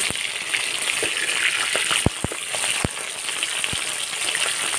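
Fish pieces frying in hot mustard oil in a kadai: a steady sizzle as they are turned over with a metal spatula. There are a few sharp clicks, two of them close together a little after two seconds in.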